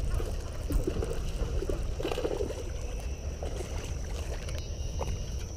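Baitcasting reel being cranked to reel in a hooked bass, with small irregular handling sounds over a steady low rumble.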